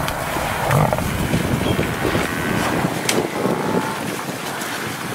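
Cape buffalo making low, rough grunting sounds at close range.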